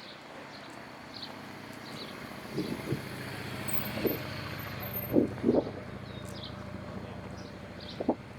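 Windy street ambience: a steady rush of wind and traffic that swells in the middle, with several short dull thumps and faint high bird chirps.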